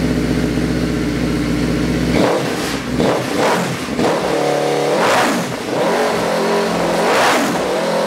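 Motorcycle engine of a garden pulling tractor idling steadily through a newly built exhaust meant to take the bark out, then, about two seconds in, revved by hand in a series of throttle blips, its pitch rising and falling about four times.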